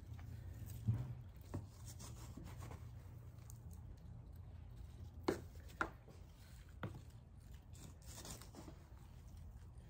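Potting soil being scooped from a plastic tub with a plastic scoop and pressed in by hand around houseplants in a hanging basket. It makes soft rustling and scraping, with a few sharp clicks and taps scattered through.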